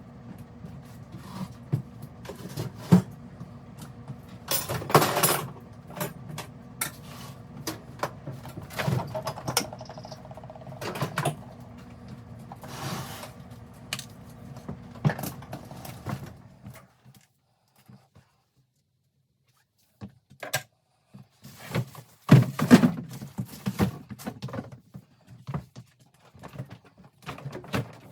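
Repeated knocks, thunks and clattering of objects being handled and set down, over a steady electrical hum. The hum stops abruptly about two-thirds of the way through, and a few seconds later more knocks and rattles follow.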